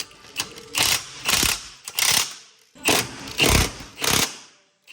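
Socket ratchet wrench on extensions being worked back and forth, its pawl clicking in a run of about seven short strokes, roughly one every half second or so, as a bolt is run in.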